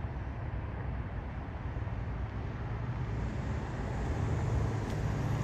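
Car engine and road noise, a steady low rumble that grows louder over the last couple of seconds.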